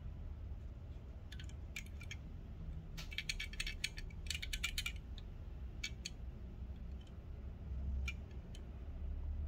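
A 1:64 diecast model car being handled and turned over in the fingers, giving small sharp clicks and rattles. A quick run of clicks comes about three to five seconds in, with a few single clicks before and after.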